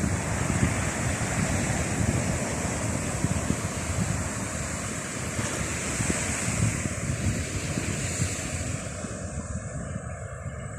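Atlantic surf breaking and washing on the shore, heard through wind buffeting the microphone with a gusty low rumble.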